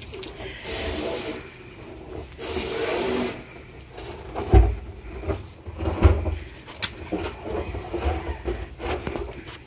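Garden hose spray nozzle squirting water into a plastic drum in two short bursts of about a second each. Then thumps and rubbing as the plastic drum is handled and tipped, the heaviest thump about four and a half seconds in.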